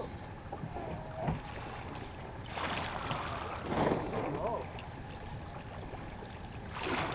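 Wind and water rushing past a keelboat sailing upwind, a steady rush that swells louder twice: for about a second and a half from about a third of the way in, and again near the end.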